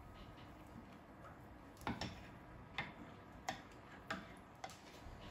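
Thin metal spatula clicking and scraping against a stainless steel frying pan while working under a stuck pancake: about five light clicks, a little under a second apart, starting about two seconds in.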